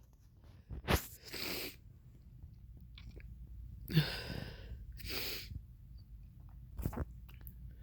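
A person sneezing twice, about a second in and about four seconds in, each sneeze followed by a breathy sniff: a sneezing fit the uploader puts down to drinking red wine.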